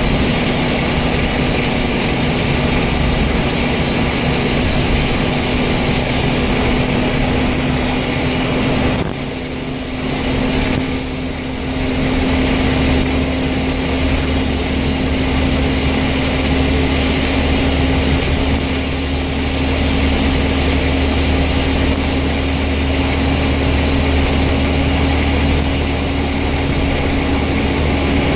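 Scania N94UD double-decker bus under way, heard from the upper deck: its nine-litre five-cylinder diesel and drivetrain give a steady drone with a held whine. The sound drops briefly twice, about nine and eleven seconds in, then pulls on with the whine slowly rising in pitch.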